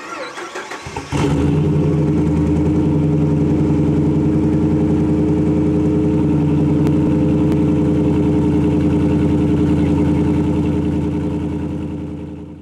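A motor vehicle engine cranks briefly, catches about a second in, and idles steadily, then fades out near the end.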